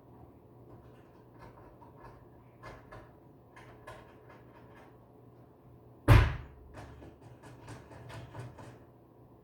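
Scattered light taps and knocks, then one sharp, loud bang about six seconds in that rings briefly, followed by a quick run of taps for a couple of seconds.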